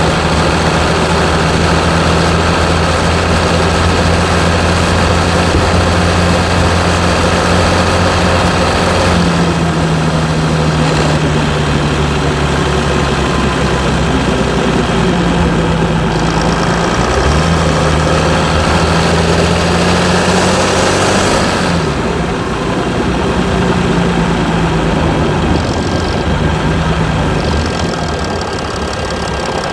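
Mercedes E320 CDI's 3.2-litre V6 common-rail diesel running at a rough idle after a cold start, with some diesel knock. The exhaust has its particulate filter and catalytic converter emptied. The note is steady at first, then wavers up and down a little from about ten seconds in.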